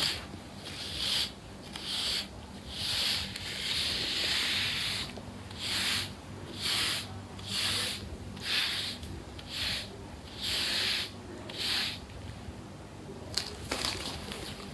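Repeated rubbing or scrubbing strokes, roughly one a second, one of them drawn out longer. They stop near the end, followed by a couple of light clicks.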